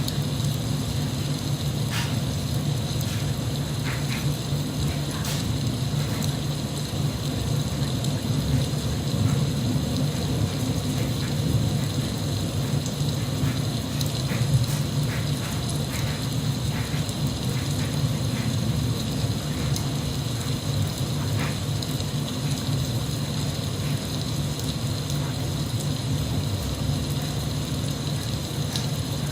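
Steady rain with a low rumble underneath and scattered drips ticking now and then.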